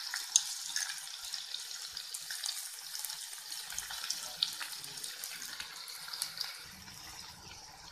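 Chopped onions sizzling in hot oil in a metal pan: a steady hiss full of small crackles and pops that eases off a little toward the end.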